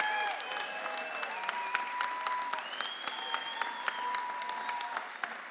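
Audience applauding and cheering, with dense clapping and several long held cheers over it.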